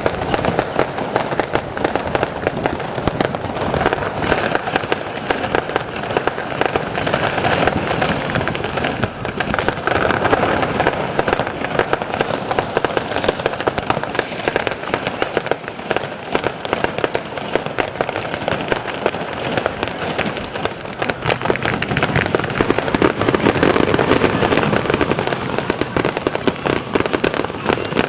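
Fireworks going off in a dense, continuous crackle of rapid pops, swelling a little near the end.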